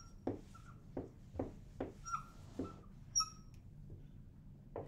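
Dry-erase marker writing on a whiteboard: short, high squeaks mixed with quick, sharp taps and strokes as the numbers are written.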